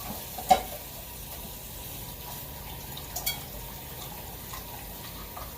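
Water running steadily from a kitchen tap into a sink, with a sharp knock about half a second in and a couple of light clicks about three seconds in.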